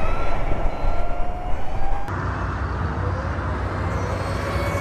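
Harley-Davidson LiveWire One electric motorcycle's motor whining and rising in pitch as the bike gathers speed, twice over, over steady wind and road noise.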